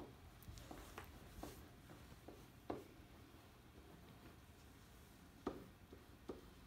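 Faint, scattered taps and strokes of a marker writing on a whiteboard, with a slightly sharper tap about a third of the way in and another past the middle; otherwise near silence.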